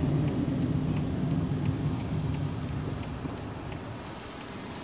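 Car engine and road noise heard from inside the cabin while driving, a low steady rumble that gets gradually quieter as the car slows.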